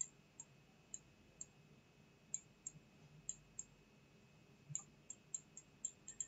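Faint, sharp clicks of a stylus tapping a pen tablet while a word is handwritten: about fifteen irregular clicks in quick clusters, with a pause of about a second in the middle.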